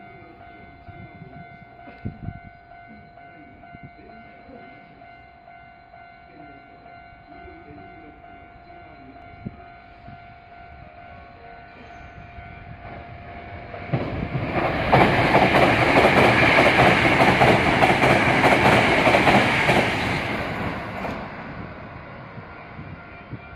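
A Hankyu 8000 series electric train passes through the station at speed. Its wheels and running gear build up about 14 seconds in, stay loud and rushing for about six seconds, then fade. Before that, steady ringing tones sound over a low background.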